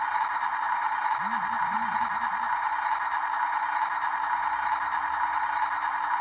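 Small electric motors and plastic gearboxes of radio-controlled toy construction trucks running, a steady whir with some rattle.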